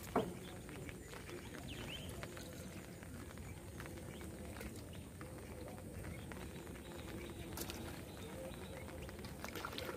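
Quiet riverside ambience with a few short bird chirps, and one sharp knock just after the start.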